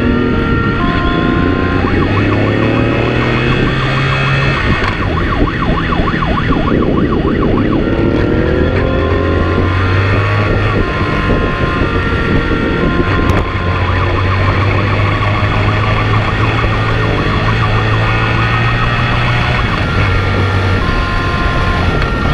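Police two-tone siren alternating between a high and a low note, at times changing to a rapid warble, over a motorcycle engine revving up and down as it accelerates and shifts.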